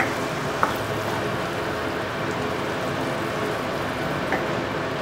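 Cooked chickpeas in a tomato, onion and green pepper sofrito sizzling steadily in a hot frying pan as a wooden spoon stirs them. Two light clicks of the spoon against the pan, one under a second in and one near the end.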